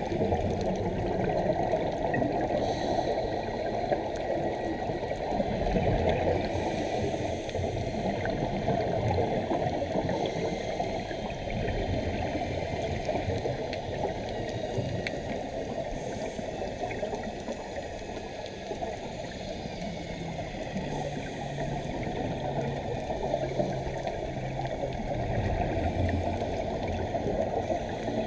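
Underwater sound picked up through a GoPro's sealed housing: a steady, muffled rush of water noise with the gurgle of scuba divers' exhaust bubbles.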